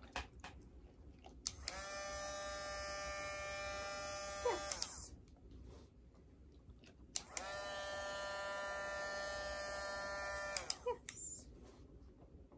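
Dremel rotary tool used as a dog nail grinder, switched on twice with a click, each time running with a steady whine for about three seconds, then winding down in pitch as it is switched off.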